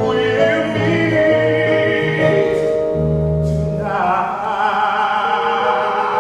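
Musical-theatre singing with vibrato over instrumental accompaniment. About four seconds in, the sound grows fuller, as if more voices join.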